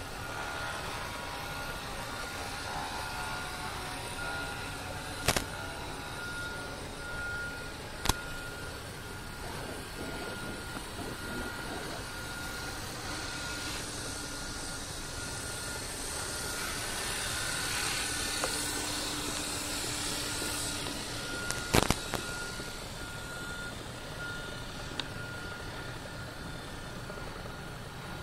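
Radio-controlled helicopter in flight: a steady rotor and motor noise that swells somewhat about two-thirds of the way through. A few sharp clicks stand out above it.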